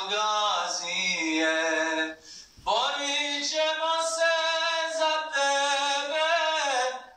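A man singing a Bosnian ilahija unaccompanied, holding long, ornamented melismatic lines without clear words. About two seconds in he breaks briefly for breath, then slides up into the next phrase.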